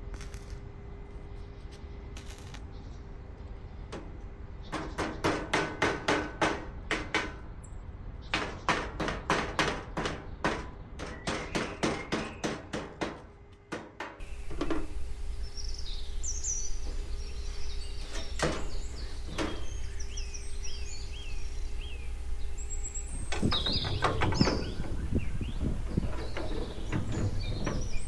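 Two runs of steady chopping, sharp strikes about three a second. After that, small birds chirp, with a few single knocks and a short clatter of knocks near the end.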